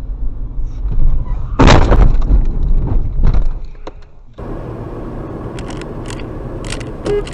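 Car collision heard from the vehicle's dashcam: a loud crash about a second and a half in, then a few more bangs and rattles of the impact, over low engine and road rumble. After a cut, steady road noise of a car driving.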